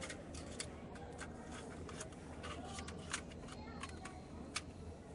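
Irregular light metallic clicks and clinks of small metal camp gear being handled, with a few sharper clicks about half a second, three seconds and four and a half seconds in.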